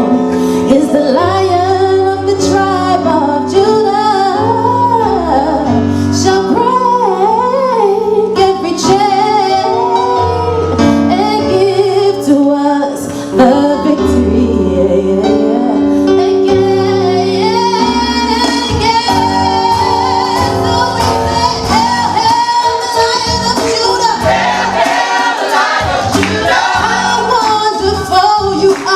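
Gospel music: a female voice sings wordless runs that bend up and down in pitch over a band with stepping bass notes. In the second half a long note is held over a high, shimmering wash.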